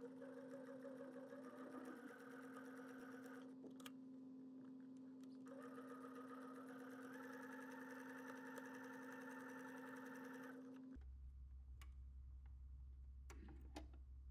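Electric sewing machine running a straight stitch through canvas: a steady motor hum with the quick rattle of the needle, in two stretches with a short break about four seconds in, stopping about eleven seconds in. A few faint clicks follow.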